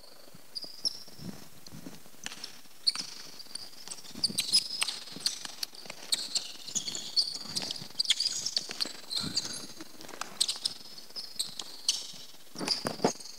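Basketball being dribbled on a hardwood court, with irregular bounces and footsteps, and rubber-soled basketball shoes squeaking as players cut and change direction.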